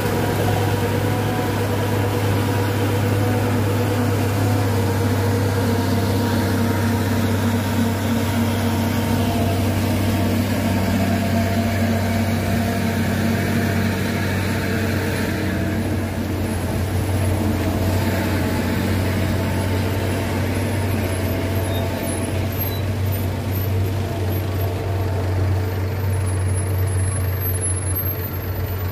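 Heavy diesel trucks' engines running steadily as they climb a wet grade: a continuous low drone with the hiss of tyres on the wet road.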